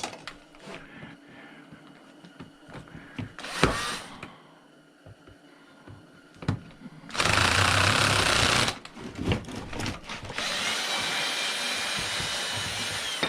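Power drill running in two spells, first about a second and a half and then about three seconds, backing a screw out of the chopsaw's housing. A single sharp knock comes a few seconds before.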